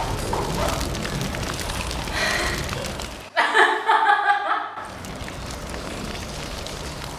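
Burning-fire sound effect, an even crackling rush of flames. About three seconds in it gives way to a second and a half of a woman laughing hard, the loudest part, then the fire sound returns, quieter.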